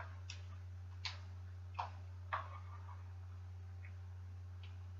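About half a dozen light clicks at uneven intervals, from hand tools working the bolts of a bicycle stem as they are snugged, over a steady low hum.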